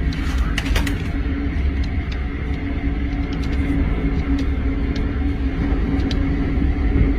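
Steady low rumbling roar of a tornado close by, with a constant hum under it. Sharp cracks and snaps come in a cluster about half a second to a second in, then scattered singly after.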